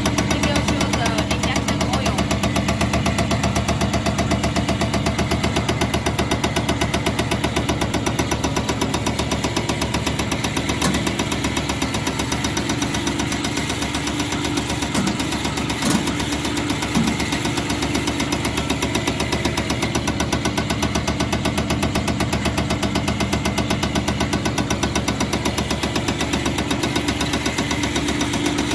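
Caterpillar HEUI injector firing on a test bench: a rapid, even clicking that keeps going without a break, over the steady hum of the bench's motor and pump.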